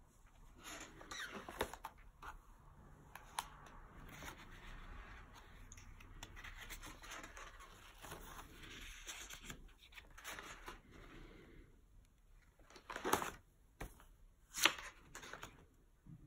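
Pages of a spiral-bound photo album being turned by hand: a long stretch of paper rustling and sliding, then two short, sharper paper flaps near the end that are the loudest sounds.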